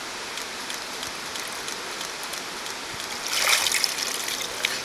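Steady rushing of a shallow rocky creek, then about three seconds in a louder burst of splashing as a person is lowered backward under the water for an immersion baptism.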